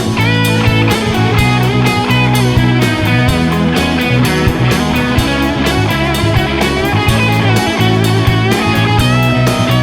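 Rock music soundtrack with electric guitar and a steady drum beat.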